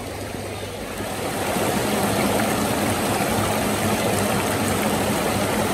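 Shallow rocky stream rushing over stones, a steady water noise that grows louder about a second in.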